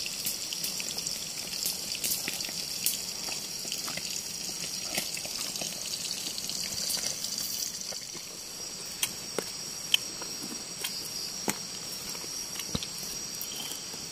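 Night insect chorus, crickets keeping up a steady high-pitched trill, with scattered light clicks and taps, a few sharper ones in the second half.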